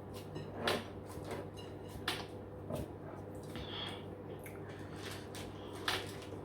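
Eating sounds: scattered soft clicks and smacks of people eating pounded yam and bitter leaf soup, over a faint steady low hum.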